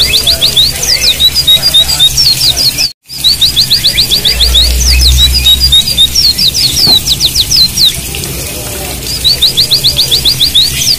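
White-eyes (Zosterops, 'pleci') singing: fast rolling trills of short rising notes, about eight a second, broken by chirps and falling notes, in repeated phrases. The sound cuts out completely for a moment about three seconds in, then the same kind of trill starts again.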